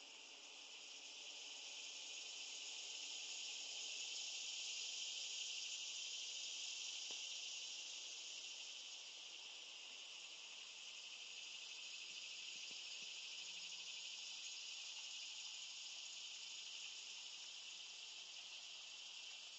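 Faint, steady chorus of insects chirring, swelling slightly a few seconds in and then easing.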